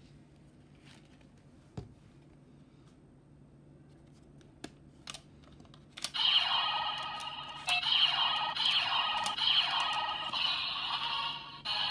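Bandai DX Chemy Riser transformation toy: a few light plastic clicks as it is handled. About halfway through, its speaker starts a repeating electronic sound effect in short pulses as a card is brought to it and slid in.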